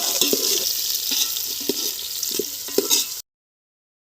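Chicken curry frying and sizzling in a pan while a spoon stirs it, with scattered knocks and scrapes of the spoon against the metal. The sound cuts off abruptly about three seconds in.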